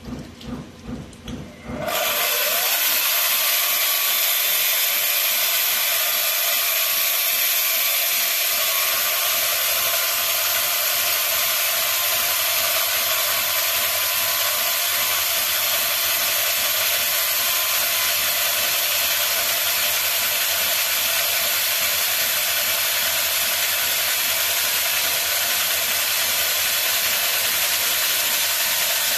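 A 220 V electric chainsaw cutting into a masonry block, running as a loud, steady, high grinding whine. A softer pulsing sound comes first, and the saw's cut starts about two seconds in.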